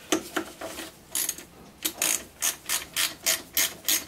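Hand socket ratchet clicking as it is worked back and forth to run in a long carburettor mounting bolt, left slack and not yet tightened. A few scattered clicks come first, then a steady run of about three clicks a second.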